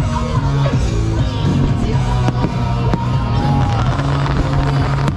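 Loud music with a steady bass line, over which fireworks go off in several sharp bangs.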